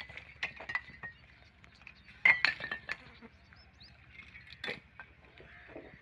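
Sharp, irregular knocks and clinks of salvaged building material being handled: bricks and bamboo poles from a demolished farm shed knocking together as they are stacked and loaded. The loudest knock comes about two seconds in, with a few more scattered through.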